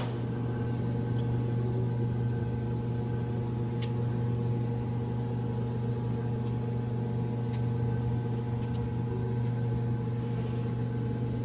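A steady low electrical or machine hum, with a few faint light clicks, likely from the small plastic helmet parts being handled.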